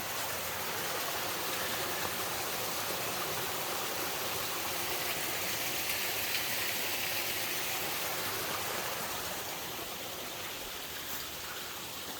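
Steady rushing of a flowing stream, an even hiss with no separate splashes, easing slightly near the end.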